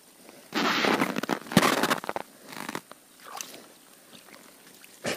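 Crunching and scraping of snow and ice slush at an ice-fishing hole as a set line is hauled up and a burbot is drawn into the hole. It comes in a few short bursts, the loudest in the first two seconds.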